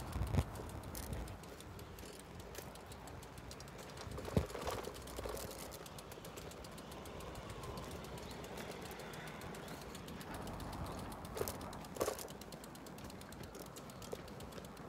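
Quiet outdoor street ambience during a walk: light footsteps and a few soft knocks, with faint birds in the background. There is a low rumble in the first second or so.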